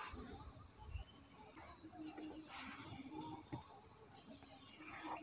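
Insect trill: one steady, high-pitched, unbroken tone.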